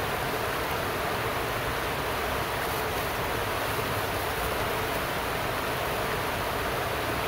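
Steady rush of a muddy river running high over shallow rocky rapids.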